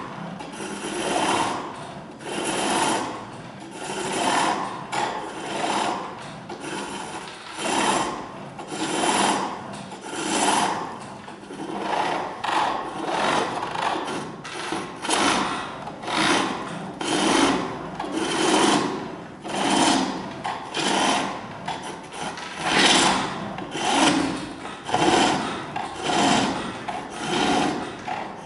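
Chisel cutting a wooden handle spinning on a foot-powered pole lathe: a rhythmic scraping of shavings that swells and fades about once every 1.3 seconds as the cord drives the work on each treadle stroke.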